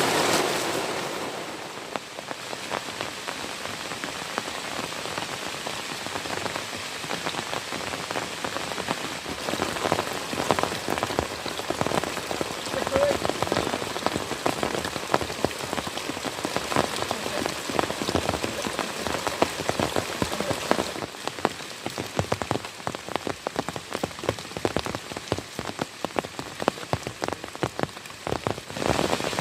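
Heavy rain falling steadily, a dense patter of many individual drops striking close by.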